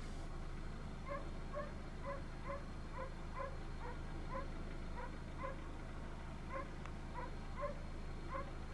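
An animal calling faintly and repeatedly in short pitched notes, about two a second, over a steady low rumble.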